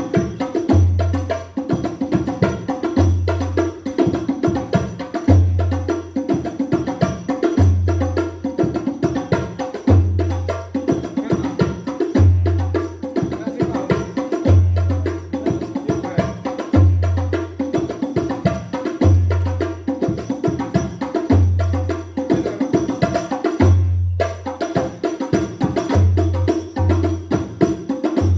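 Hadrah ensemble of terbang frame drums playing a fast interlocking rhythm, with a deep bass drum stroke about once a second, through an amplified sound system.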